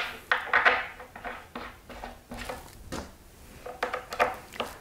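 Irregular clicks and rattles of small hardware being handled: a rubber bumper, its Allen screw and an Allen wrench being fitted against the wooden side board of a Dobsonian telescope base.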